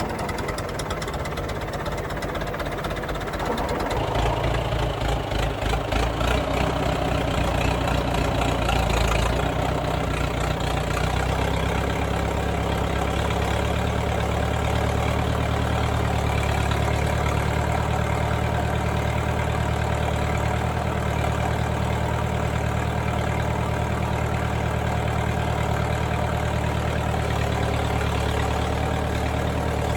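Tractor engine running. The note rises and gets louder about four seconds in, then settles into a steady run.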